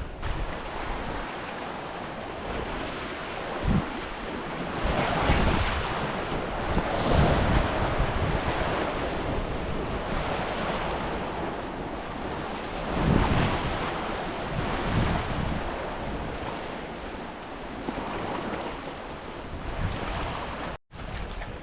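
Gusty wind buffeting the microphone with a low rumble, over the steady wash of waves; the noise swells and eases every few seconds.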